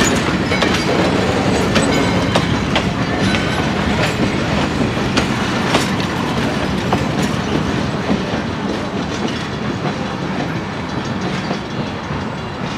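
Old-style passenger coaches rolling past close by, their wheels clicking over the rail joints over a steady rolling rumble. The sound eases a little near the end as the last coach goes by.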